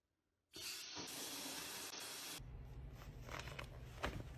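Water gushing from a bathroom tap, a loud steady hiss lasting about two seconds after a brief silence. Then it cuts to a quieter room with a low hum and a few soft clicks and rustles of paper pages being handled.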